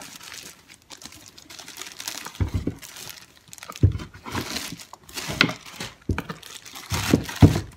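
Packaging rustling and crinkling as a boot is slid out of a cloth boot bag in its plastic wrapping, among tissue paper in the box, with several dull handling bumps.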